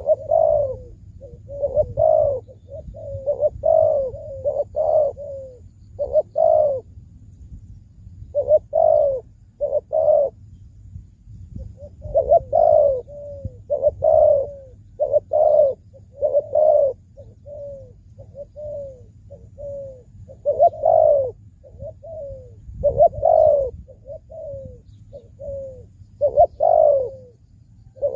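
Spotted dove (cu gáy) cooing, a decoy bird calling over and over in phrases of several short coos, with brief pauses between phrases.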